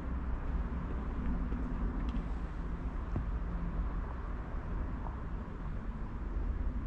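Steady low rumble of a long container freight train rolling along the track.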